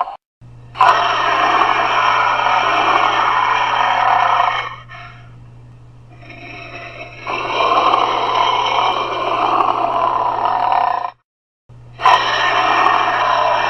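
Homemade dinosaur roar sound effect made from an altered human voice: long roars, the first starting abruptly about a second in, a second following a quieter stretch in the middle, and a third after a brief silence near the end, over a steady low hum.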